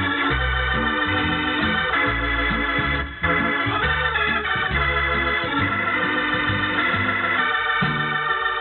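Organ music: held chords over a bass line that changes note about every half second, with the dull, narrow sound of an old radio recording.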